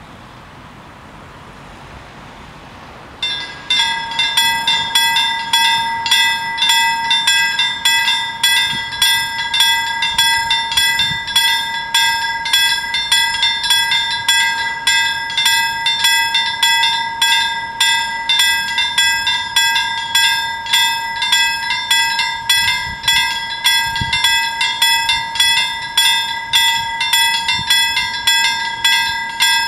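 Swedish level-crossing warning bells start ringing suddenly about three seconds in, then keep striking at a fast, even rate with a clear pitched clang. They signal that a train is approaching the crossing.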